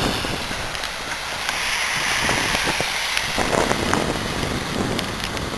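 Wind buffeting the camera microphone in a snowstorm: a steady rushing noise with low rumbling.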